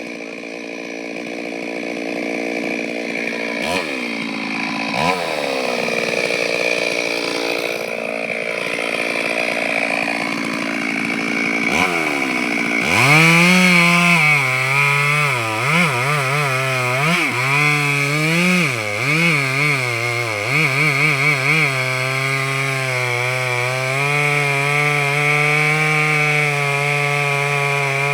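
Chainsaw engine running at varying throttle, then revved hard about halfway through; its pitch dips and recovers again and again as the chain cuts into wood, then holds steady at high revs.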